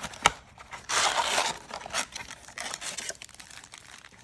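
A cardboard trading-card blaster box being ripped open by hand, with a sharp click near the start, a loud tear about a second in, then scattered crackling and scraping of the packaging.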